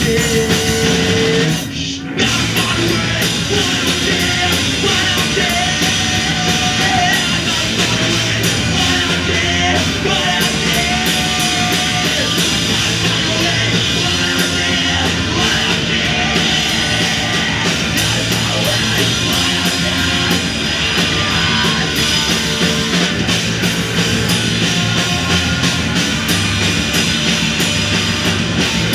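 Live rock band playing loud, with drums and electric guitars; the band drops out for a moment about two seconds in, then comes back in full.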